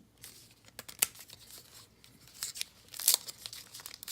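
Crinkling and tearing of a foil trading-card pack wrapper, with cards being handled, in short scratchy bursts that grow louder about three seconds in.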